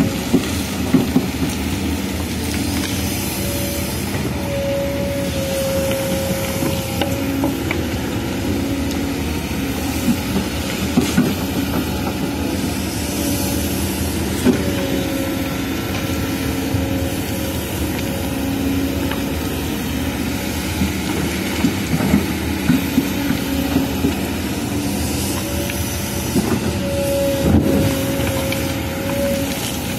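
Kobelco SK210HD hydraulic excavator digging soil and gravel: its diesel engine runs steadily under load, with a whine that swells and fades every few seconds as the boom and bucket move. Short knocks of stones sound now and then.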